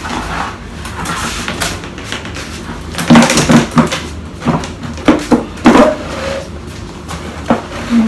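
A white plastic chair knocking, clattering and scraping on the floor as it is lifted and moved about, with a cluster of knocks in the middle.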